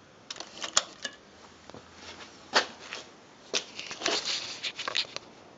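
Handling noise from a handheld camera being moved about: scattered, irregular knocks and rustles, thickest near the end.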